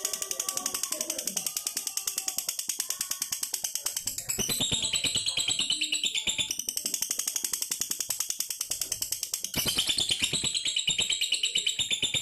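Fighter lovebird singing in a long, unbroken run of rapid, high-pitched chattering notes. This driving, continuous delivery ('ngegas') is the competition quality prized in fighter lovebirds, as opposed to a stuttering, broken song. The song shifts pitch about four seconds in and again about nine and a half seconds in.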